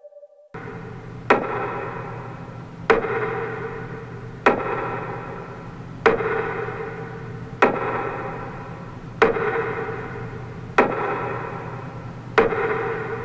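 Slow, evenly timed strikes, eight in all, about one every second and a half. Each rings on and dies away over a low steady drone.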